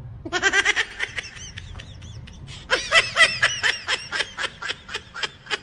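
Rapid, high-pitched giggling laughter in two bouts: a short one at the start, then a longer one from about midway that trails off in quick separate pulses near the end.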